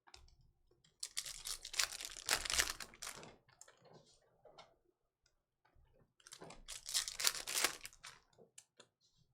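Trading card packs and cards being handled: crackly rustling and crinkling of pack wrappers and chrome baseball cards, in two bursts of a couple of seconds each with scattered light clicks between.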